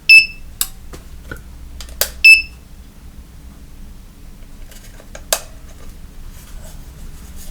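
Sonoff T1 UK light switch's built-in beeper giving two short high beeps about two seconds apart, the sign that the switch has received a 433 MHz remote's code. Sharp clicks come between and after the beeps, the loudest about five seconds in.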